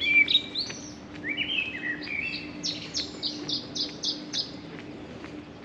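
Small songbird singing: scattered short chirps, then a quick run of about eight repeated high notes.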